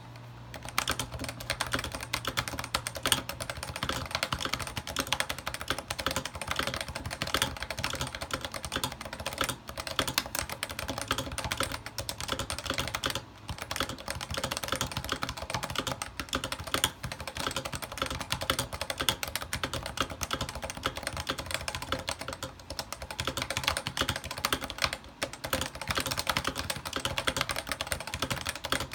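Fast, continuous typing on a lubed Cooler Master NovaTouch TKL keyboard: electro-capacitive Topre-style rubber-dome switches under GMK Ocean Dolch doubleshot ABS keycaps. The keystrokes clack in quick succession, with a few brief pauses.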